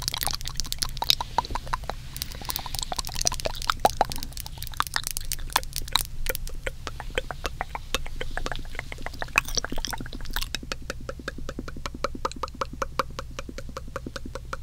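Wet mouth sounds made close to the microphone: a dense run of moist tongue and lip clicks and smacks. After about ten seconds they settle into a fast, even series of clicks.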